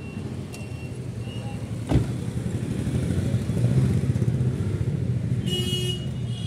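A car door slams shut about two seconds in, over a steady low rumble of vehicles running nearby. Near the end a short high-pitched buzz is heard.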